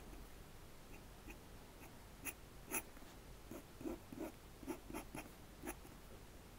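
Steel dip-pen nib scratching across paper in short, quick strokes as a face is inked: about a dozen faint scratches, the loudest coming in the middle.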